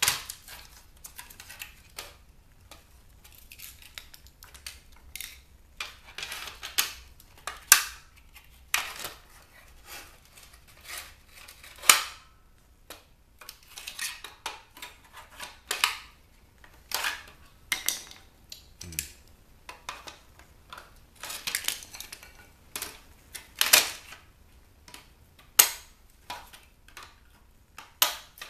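Irregular sharp clicks and clatter of hard plastic as a CD/tape player's housing is taken apart by hand and with a screwdriver.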